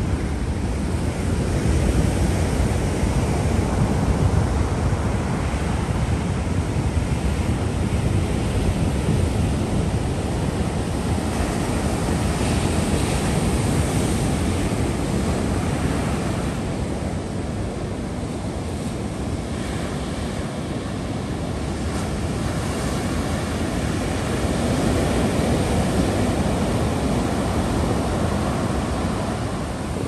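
Ocean surf washing onto a beach: a continuous rush of breaking waves that slowly swells and eases, with some wind noise on the microphone.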